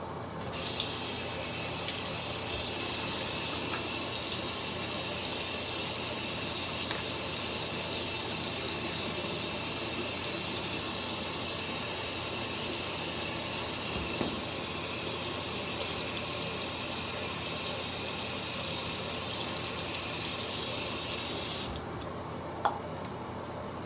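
Bathroom sink tap running steadily, water splashing into the basin. It is turned off abruptly near the end, followed by a single sharp click.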